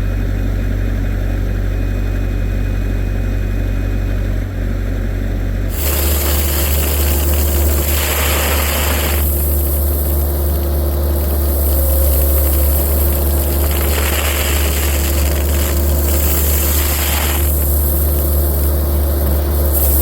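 Heavy excavation equipment's engine running steadily with a deep rumble. About six seconds in the sound changes abruptly, and after that bursts of hiss come and go over the engine.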